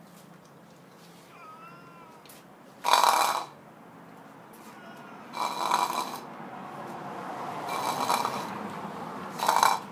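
A domestic tabby-and-white cat meowing four times: three short, loud meows and a longer, softer one in between.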